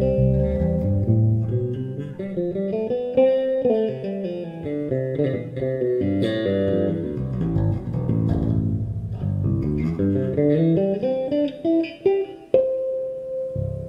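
FL Custom Master Custom 003 six-string electric bass with Aero Custom K-series pickups, played in quick runs of notes and chords. A held note rings out near the end.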